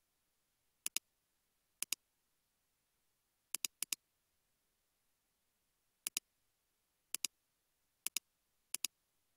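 Computer mouse button clicked about eight times, each click a sharp press-and-release pair, with a quick double-click about three and a half seconds in. Near silence between the clicks.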